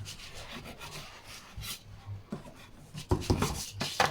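Knife sawing back and forth through a génoise sponge cake to trim its edges straight: a run of rasping strokes that grows louder about three seconds in.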